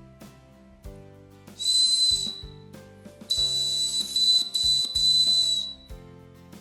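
A ring whistle blown in two blasts: a short one about one and a half seconds in, then a longer one of about two and a half seconds. Each is a shrill, steady, breathy tone.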